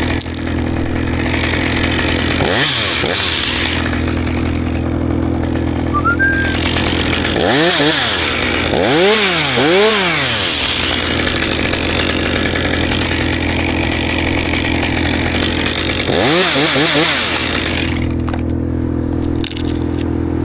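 Chainsaw revved up and let back down several times, over a steady engine drone running underneath.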